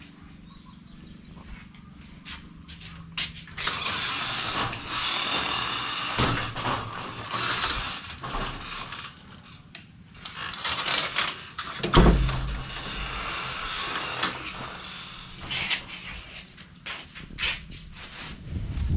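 A wooden door being shut and locked: scraping, rattling and latch clicks, with one heavy thump about twelve seconds in.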